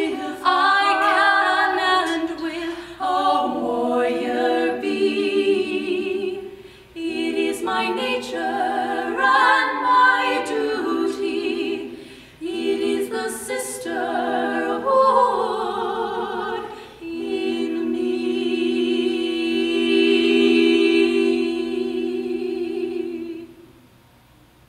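Three women's voices singing a cappella in close harmony, in several phrases with short breaks between them, ending on one long held chord that stops about a second before the end.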